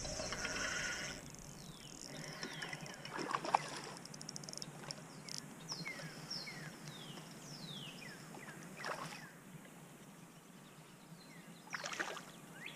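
A bass hooked on a spinning rod and fought beside a kayak, with water splashing at the surface, loudest near the end as the fish thrashes. Birds whistle short falling notes again and again in the background.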